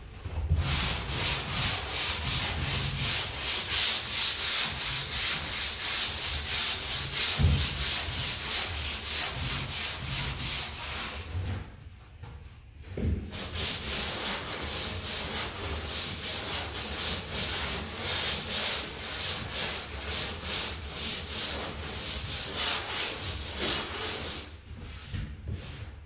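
Hand sanding of hardened filler on a rudder plug with a longboard sanding board: rhythmic back-and-forth rasping strokes, with a break of about a second near the middle, stopping shortly before the end.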